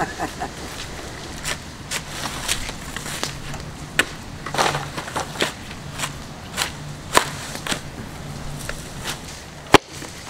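A coconut husk being split and torn apart on a fixed metal husking blade: irregular fibrous cracks and snaps, with one sharp loud crack near the end.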